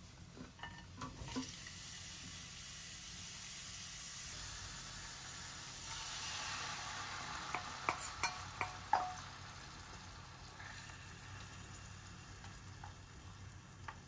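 Chillies, garlic and green pepper pieces sizzling and being stirred in oil in a frying pan. About eight seconds in, a quick run of sharp taps comes as a spoon scrapes sauce out of a small steel saucepan into the pan, and the frying carries on more quietly after.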